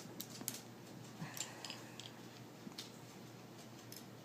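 Faint, scattered light clicks and taps of a Glock pistol's barrel and slide being handled and fitted together during reassembly.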